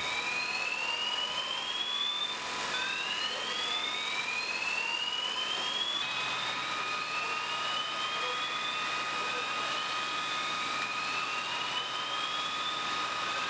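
Electronic evacuation alarm sounding a repeating slow rising whoop, each sweep climbing in pitch for about two to three seconds, over a steady rushing noise.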